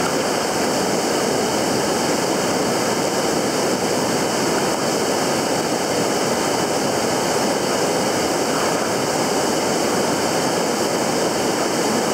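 Steady rushing of stream water, an even, unbroken noise.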